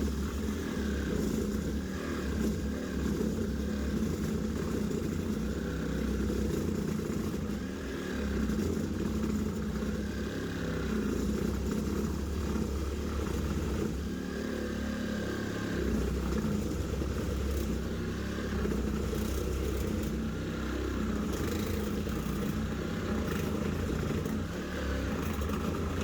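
Reciprocating saw running flat out and cutting through an old 3x2 timber, a continuous motor-and-blade sawing sound that keeps going without a break.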